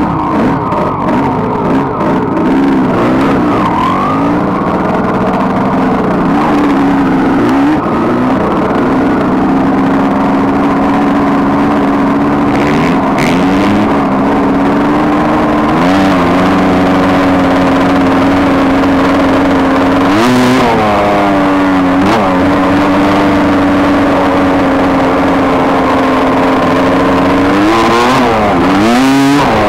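Two-stroke single-cylinder engine of a 1992 Suzuki RMX250 dirt bike, heard on board while riding, running at a steady pitch that dips and climbs again a few times as the throttle is rolled off and reopened.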